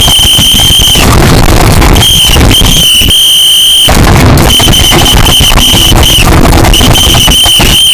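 Piercing high-pitched steady tone, sounding in five blasts of about a quarter second to nearly two seconds each, very loud and distorted over rough crackling noise.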